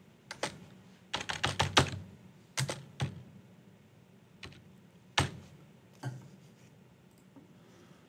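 Computer keyboard keystrokes: single taps, a quick run of about six keys a little over a second in, then scattered single taps that stop about six seconds in.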